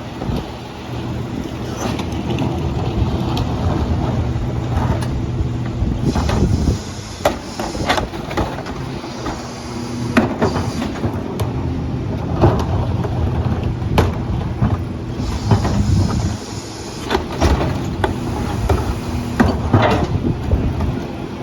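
Garbage truck's engine running steadily, with repeated sharp knocks and clanks throughout, coming thickest from about a third of the way in.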